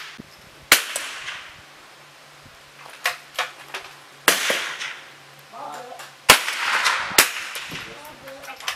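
.22 LR smallbore rifle shots from the firing line: about six sharp cracks at uneven intervals, several trailing off in a short echo, the loudest about two-thirds of the way through.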